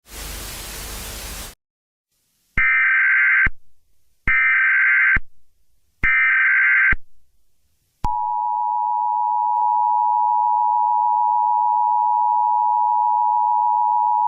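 Emergency Alert System sequence: a burst of static, then three screechy digital SAME header data bursts about a second each, then the steady two-tone EAS attention signal starting about 8 s in and holding. It marks the start of a new emergency alert.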